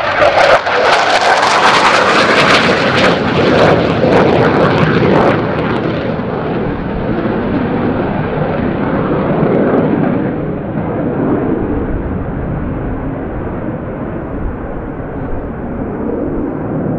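Panavia Tornado GR4 jet passing low and close with its twin RB199 turbofans, a loud roar with harsh crackling for about the first five seconds, then a rumble that slowly fades as the jet flies away.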